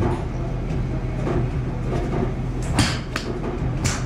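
Golf iron striking a ball off a range mat with a sharp crack about three seconds in, then a second sharp club-on-ball crack about a second later, over a steady low hum.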